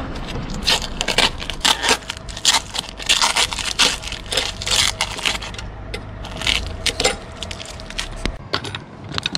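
Crackling, rustling and scraping of a paper rag and masking tape being handled and wiped along the roof edge of a van, many short crisp crackles in quick, uneven succession, thinning out near the end.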